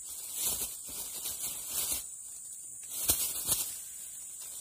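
Two spells of rustling, scraping noise, the second with a sharp click in it, over a steady high drone of insects.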